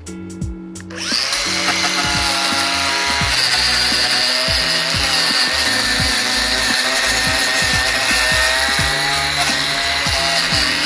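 A power tool starts about a second in and runs steadily with a whine, over background music.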